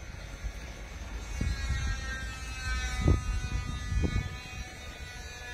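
A small motor passing, its whine slowly falling in pitch, over a low rumble with a few dull thumps, the loudest about three seconds in.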